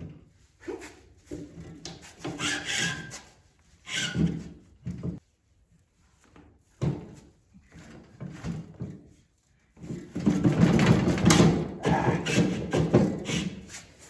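Irregular knocks, clunks and scraping of metal frame parts as a sawmill frame post is shoved and worked into its socket, with a longer, louder stretch of scraping and clatter about ten seconds in.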